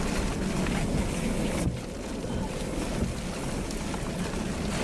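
Strong wind from a tornado blowing across the microphone: a steady, dense rushing noise with a brief dip just under two seconds in.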